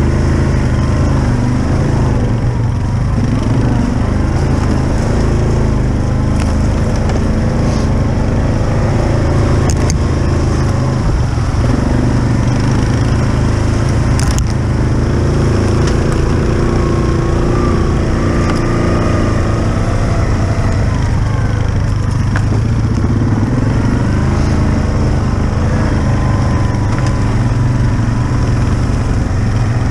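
Yamaha Kodiak ATV engine running steadily under way, heard from the machine itself, with a couple of brief clicks near the middle.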